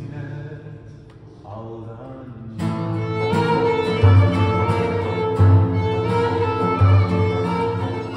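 Live instrumental passage on violin, acoustic guitar and frame drum. It starts soft, then about two and a half seconds in the guitar starts strumming and the music gets louder, with deep frame-drum strokes about every second and a half.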